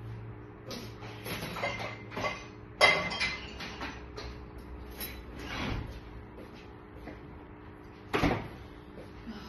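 Household handling sounds: cupboard or door knocks and clatter of items being moved, loudest about three seconds in and again near the end, over a steady low hum.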